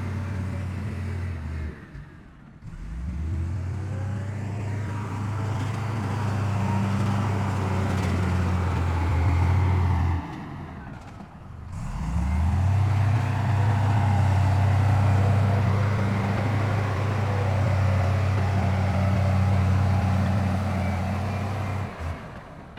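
Diesel engine of heavy earthmoving machinery running hard. Its note drops away briefly twice, then climbs back up in pitch.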